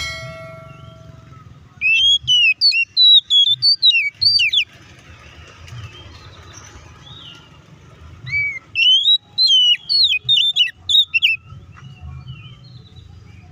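Oriental magpie-robin (kacer) singing in two bouts of loud, fast, varied whistled phrases with quick rising and falling notes, the first about two seconds in and the second about nine seconds in. A short ringing tone sounds at the very start.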